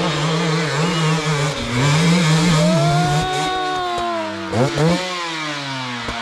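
Enduro dirt bike engine revving as the bike climbs a steep leaf-covered slope, its pitch wavering quickly up and down with the throttle, then a long rise and fall, and a sharp drop and burst of revs about four and a half seconds in.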